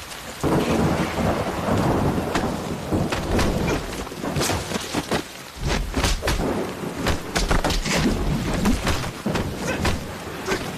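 Heavy thunderstorm: a steady downpour that comes up loud about half a second in, with repeated sharp cracks and deep rumbles of thunder.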